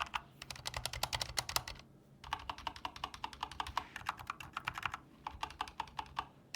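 Typing on an Endorfy Thock tenkeyless mechanical keyboard, miked close up: fast runs of key presses, broken by two short pauses, about two seconds in and again about five seconds in.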